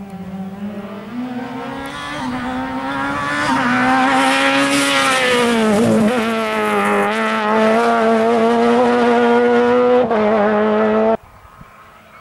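Ford Fiesta rally car at full throttle, approaching and passing close by, its engine note climbing through the gears with a dip about six seconds in as it goes past. The sound cuts off abruptly near the end.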